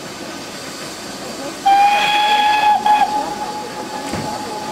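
Steam locomotive whistle: one loud, steady blast starting about a second and a half in and lasting a little over a second, then trailing on more quietly at the same pitch, over the steady hiss of the working locomotive.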